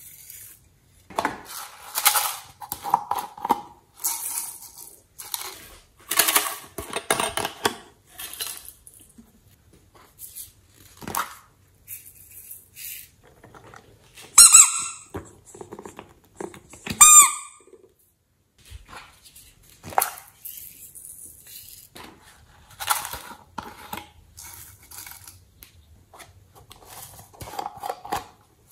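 Crinkling and rustling of a clear plastic piping bag and small knocks of things being picked up and set down. Twice in the middle, about three seconds apart, a cat-shaped rubber squeeze toy gives a loud squeak as it is squeezed.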